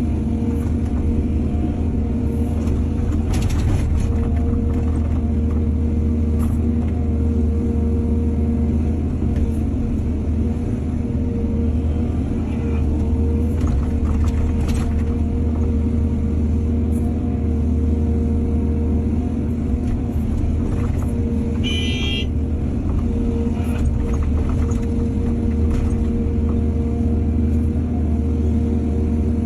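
Heavy diesel machinery running steadily with a deep, constant hum, and a few faint knocks. A brief high-pitched squeal comes about three-quarters of the way through.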